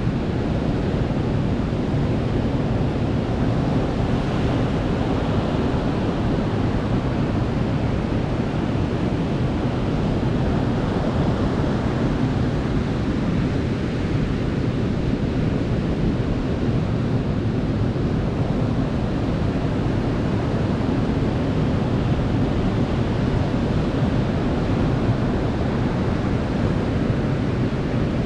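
Ocean surf washing onto a beach: a steady, low rush of breaking waves with gentle swells in loudness, and some wind on the microphone.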